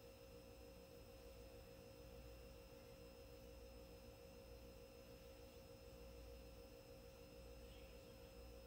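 Near silence: room tone with a faint steady hum at one pitch.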